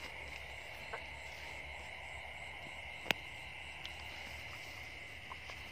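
Steady high chirring of crickets and other night insects, with a few short clicks, one sharp and loud about three seconds in.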